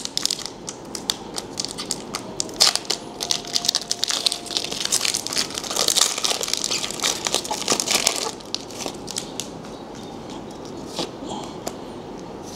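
Foil wrapper of a Pokémon trading card booster pack being torn open and crinkled by hand: a dense run of crackles and rustles that stops about eight seconds in, leaving only a few faint clicks.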